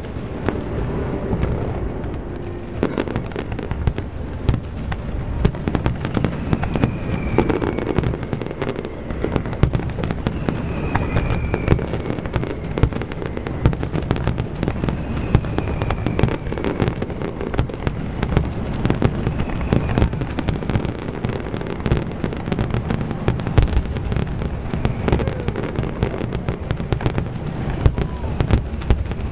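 Aerial fireworks display: a dense, continuous barrage of crackling and booming shell bursts, with a few faint falling whistles.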